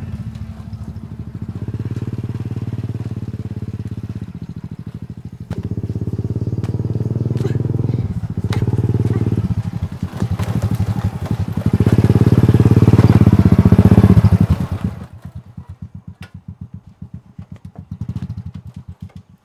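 Small step-through motorcycle engine running as the bike rides along, surging and easing off, loudest a little past halfway. It then drops to a putting idle and cuts off near the end.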